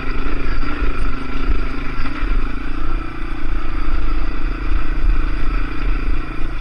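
Yamaha TW200's single-cylinder four-stroke engine running steadily under load in second gear as the bike climbs a rocky trail, its pitch wavering in the first few seconds and then holding even.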